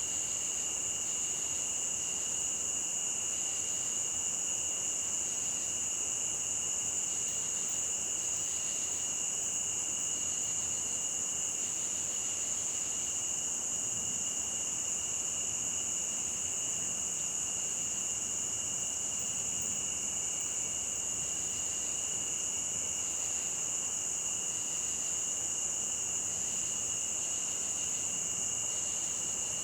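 Crickets chirping in a continuous high-pitched chorus, with a steady shushing of stream water beneath. A lower chirp comes and goes every second or so.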